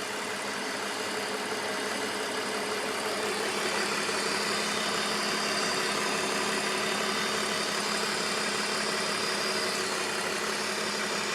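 BMW E46 engine idling with a diesel-like ticking from the top end, recorded close to the engine bay; the sound stays steady throughout.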